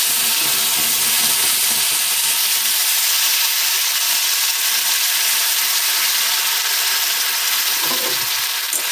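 Ground ginger-garlic-onion-cumin-chili masala paste sizzling steadily in hot oil in a kadai, a constant loud hiss.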